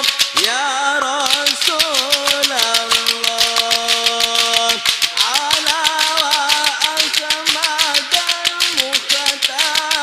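Ishari sholawat chanting: one wavering, ornamented vocal line with a long held note in the middle, over fast, even hand clapping from a large crowd.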